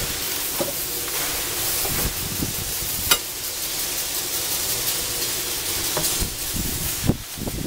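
Hand tools knocking and clinking on metal while a car's transmission mount is worked on, over a steady hiss; the sharpest knocks come about three seconds in and again near the end.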